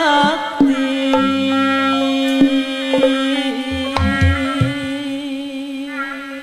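Live Sundanese jaipongan music: a woman singing a wavering line that settles into a long held note, over gamelan with hand-drum strokes and low drum thuds.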